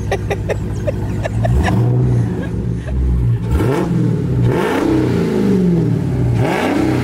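Straight-piped Dodge Charger Hellcat's supercharged V8 idling with a low rumble, then revved up and down several times in rising-and-falling blips.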